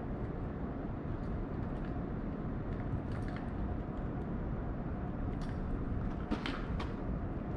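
Steady low outdoor rumble with a few faint clicks, a small cluster of them about six and a half seconds in.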